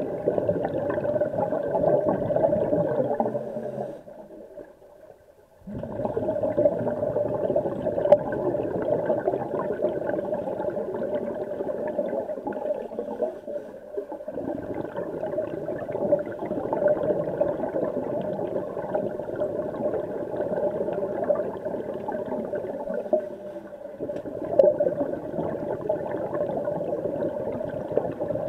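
Muffled, steady underwater rushing noise picked up by a camera submerged in a swimming pool, dropping away briefly about four seconds in.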